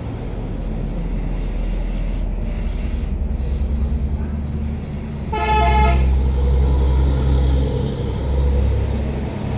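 Steady low rumble of a running vehicle, with a single short car-horn toot lasting under a second about five seconds in.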